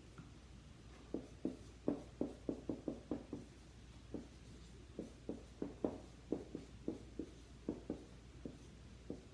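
Dry-erase marker writing on a whiteboard: a quick, irregular run of short taps and strokes as a formula is written out, starting about a second in.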